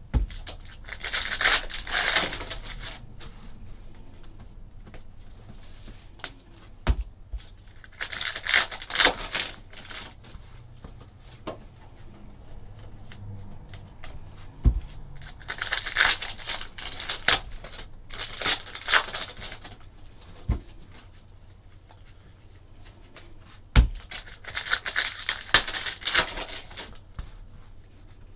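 Football trading cards being slid apart and flipped through by hand: four spells of dry, scratchy rustling, with a few single knocks in between.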